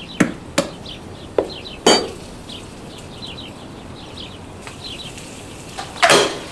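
Faint chirps of small birds in the background, with a few sharp clinks and knocks scattered through, and a brief louder rustle near the end.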